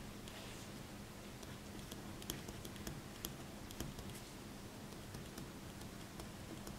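Ballpoint pen writing on paper: faint scratching with small scattered taps as the tip touches down for each stroke.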